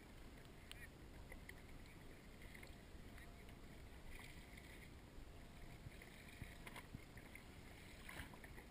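Near silence: faint water noise at the surface with a few light clicks.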